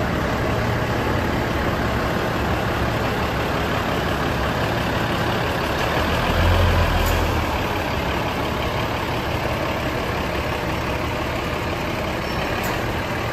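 Diesel railcar engine running steadily, with a brief deeper swell in the low rumble about six to seven seconds in.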